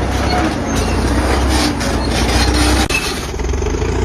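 T-130 crawler bulldozer straining under load: its engine runs hard with a steady low drone, over grinding and squealing from its steel tracks. The sound breaks briefly about three seconds in.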